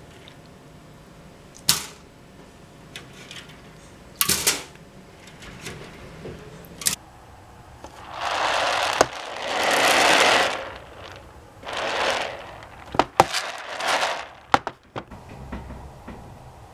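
Wet okra seeds being handled and spread over a plastic tray: a few sharp clicks and knocks, then a couple of seconds of rattling, rushing noise in the middle as the seeds are shaken across it, and a last cluster of clicks near the end.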